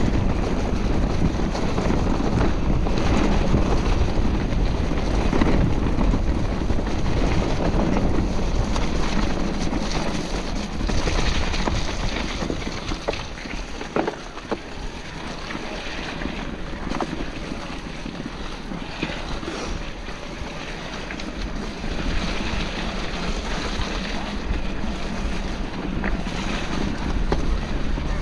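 Wind buffeting a mountain-biker's camera microphone while riding, with small knocks and rattles from the bike over rough ground. The rush eases for a stretch in the middle, then picks up again.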